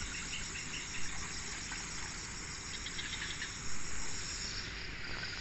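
Insects chirping in a rapid, steady pulsing rhythm over a low rumble.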